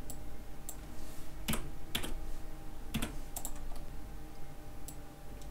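Computer mouse and keyboard clicks: a scattering of separate clicks over a faint steady hum.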